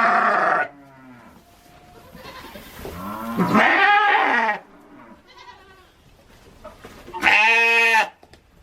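Bleating livestock: three loud bleats a few seconds apart, the middle one rising and then falling in pitch, with fainter bleats between them.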